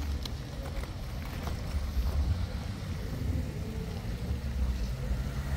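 Low, uneven rumble of wind buffeting the microphone, with a vehicle engine idling underneath.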